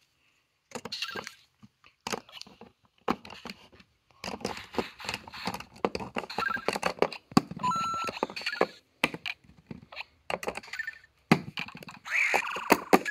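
Plastic Lego pieces clicking and knocking together in quick, irregular taps as the figures are handled. A short electronic beep from the Lego Mario figure's speaker sounds about eight seconds in.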